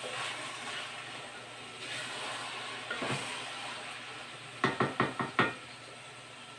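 Ground pork and bacon frying in a stainless steel pot, a steady sizzle with the scrape of a wooden spoon stirring. Near the end the spoon knocks four times in quick succession on the pot, which rings briefly.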